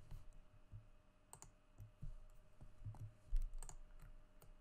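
Computer mouse clicks, scroll-wheel turns and keyboard shortcut presses (Alt-click, Ctrl+E) at irregular intervals, with a few low thumps, the loudest a little after three seconds.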